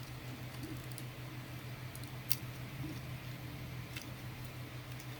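Small plastic clicks and taps of Joy-Con parts being handled and fitted back together: a few faint clicks, the sharpest a little over two seconds in, over a steady low hum.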